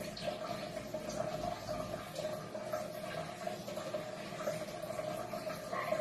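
Aquarium pump running with water bubbling and splashing in the tank, over a steady hum.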